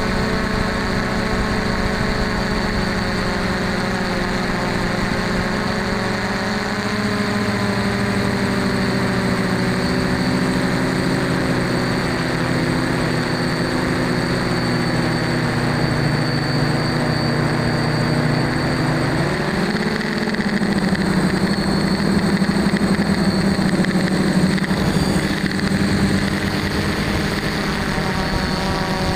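The electric motors and propellers of a DJI F550 hexacopter humming steadily in flight, picked up by a camera mounted on the frame. The pitch of the hum shifts about two-thirds of the way through as the motor speeds change.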